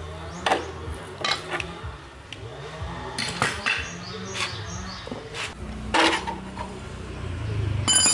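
Hand tools and metal parts clinking and knocking against each other and the concrete floor while an old motorcycle is taken apart: about ten sharp, irregular metallic clinks, with a ringing clink near the end.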